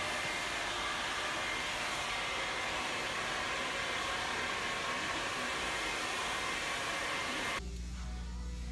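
Hair dryer blowing steadily in a salon. It cuts off suddenly near the end and a quieter low hum takes over.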